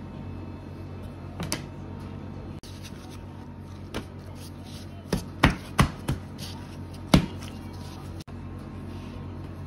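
Bread dough being slapped down hard onto a plastic work board during slap-and-fold kneading by hand, a sharp smack with each throw, about seven in all, most of them bunched in the second half. A steady low hum runs underneath.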